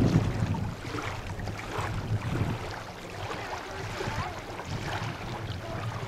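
Wind rumbling on the microphone, easing off about a second in, over small waves lapping at a lakeshore.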